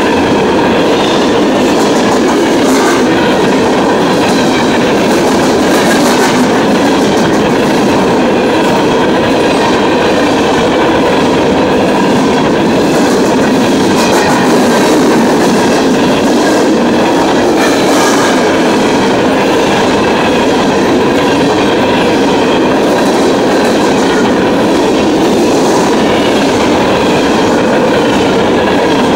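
Open-top hopper cars of a CSX freight train rolling past close by at speed: the steel wheels on the rails make a loud, steady rolling noise with the clickety-clack of wheels over the rail joints.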